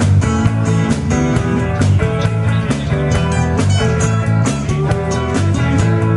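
Live rock band playing: guitars and electric bass over a drum kit, with regular drum and cymbal hits.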